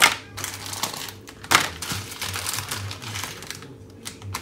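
Plastic ham package crinkling as it is handled on a cutting board, with two sharp knocks, one at the start and one about a second and a half in, and a lighter one near the end.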